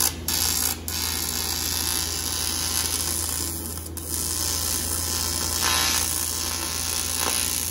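Electric arc welding on a cast aluminium Allison transmission case: a steady buzzing hum with a hiss, the arc breaking off briefly a couple of times near the start and again about four seconds in. The welder said the casting was welding poorly because of impurities in the aluminium.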